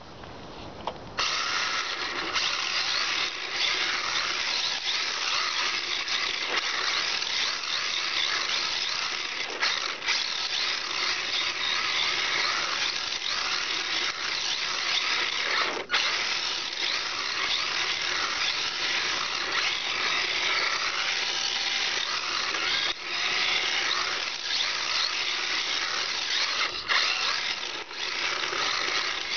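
A radio-controlled drift car's motor and gears whirring steadily as it drives and slides around on asphalt, starting about a second in and dipping briefly now and then.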